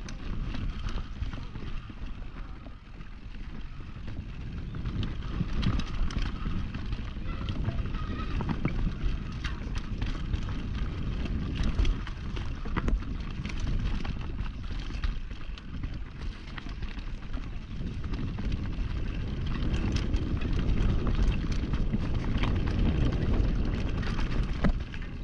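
Mountain bike riding down a rough dirt trail: tyres rolling over dirt and rocks under a steady low rumble, with frequent clicks and clatter from the bike over bumps.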